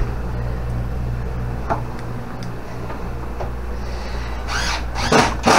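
A steady low hum with a few faint clicks, then rustling and knocking near the end as the cupboard doors and a flashlight are handled close to the microphone.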